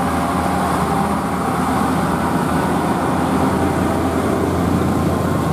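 Diesel engine of a heavily loaded truck labouring slowly up a steep climb: a steady, deep engine drone. Motorcycle engines join in near the end.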